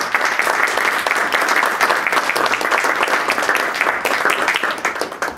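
Audience applause, a dense patter of many hands clapping, tapering off near the end.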